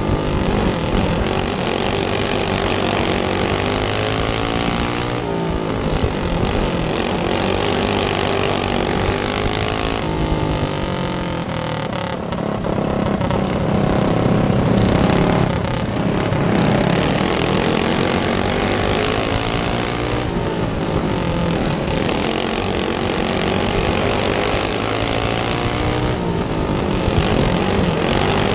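Onboard sound of a racing go-kart's small engine at speed on a dirt oval, the revs rising and falling every few seconds as it drives down the straights and lifts into the corners.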